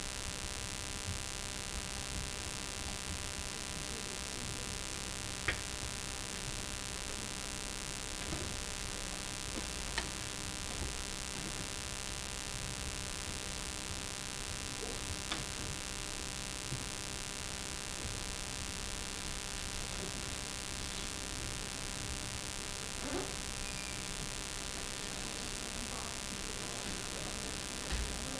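Steady electrical mains hum with hiss, broken by a few faint, brief clicks and knocks.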